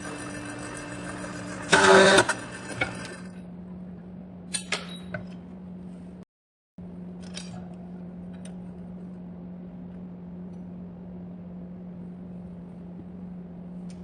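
Light metal clinks of 6 mm iron round bar being handled, over a steady low hum. A loud burst of noise lasting about half a second comes just before two seconds in, and the sound drops out briefly a little after six seconds.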